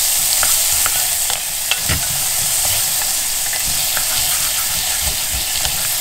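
Chopped onion and capsicum sizzling in oil over high heat in a stainless steel saucepan, with a wooden spoon scraping and knocking against the pan as they are stirred.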